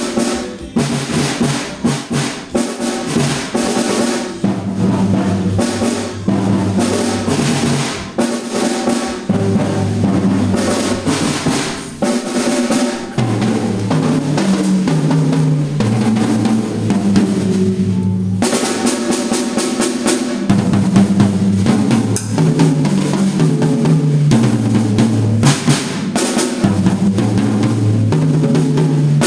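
Music led by a drum kit, with dense snare, bass drum and cymbal strokes over a moving bass line. The cymbals and snare drop out for a moment about eighteen seconds in, then come back.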